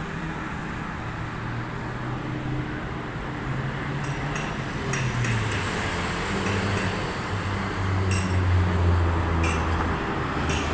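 A large vehicle engine running at low pitch, its note shifting up and down and growing louder about eight seconds in, with a few light clinks.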